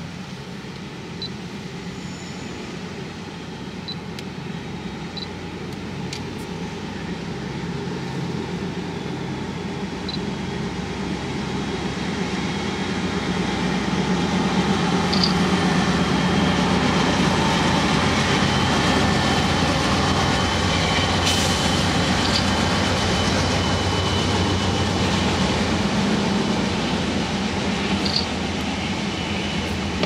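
Diesel freight train passing, led by BC Rail locomotive 4605: the locomotive rumble grows from faint to loud over about fifteen seconds as it draws level, then the freight cars keep up a steady loud rolling rumble. Heard from inside a car.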